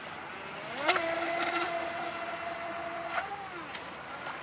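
Whine of an MMP Shark RC speedboat's 3200KV electric motor on a 2S LiPo, rising as the throttle opens just before a second in. It holds steady for about two seconds, climbs briefly, then falls away. There is a sharp smack about a second in as it gets going.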